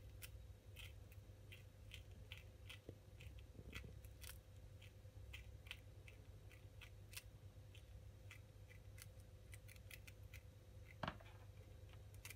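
Faint, irregular crisp clicks, a couple a second: a pet prairie dog chewing and nibbling its food. A faint steady hum runs underneath, and there is a brief louder rustle about eleven seconds in.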